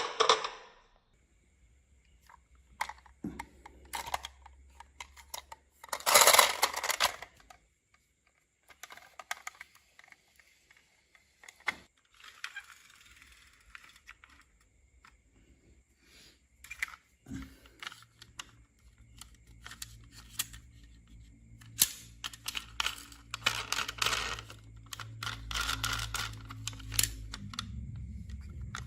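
Marbles clicking and clattering along a toy marble run, in scattered taps and short bursts of rapid rattling. From about halfway through, a low steady hum runs underneath.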